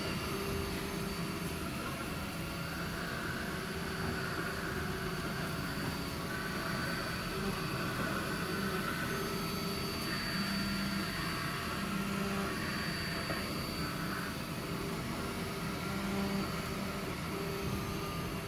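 MINGDA MD-16 3D printer running a print: the stepper motors whine in tones that change pitch every second or so as the print head moves, over a steady whir of its fans.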